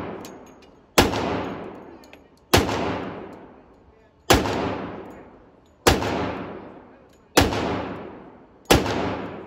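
Pistol shots, six in slow, evenly paced fire about a second and a half apart, each followed by a long echo off the walls and ceiling of an indoor range.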